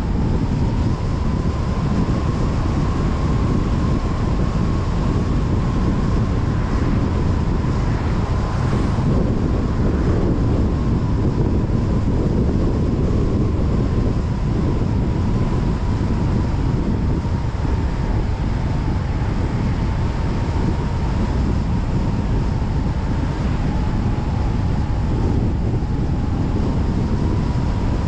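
Car driving at steady speed on a highway: continuous tyre rumble and wind rush, with a faint steady whine.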